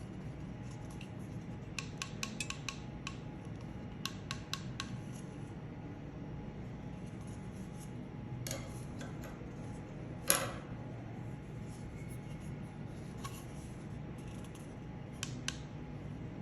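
Small hard plastic parts being handled and set down, giving quick runs of light clicks and a few louder single clicks, the loudest about ten seconds in.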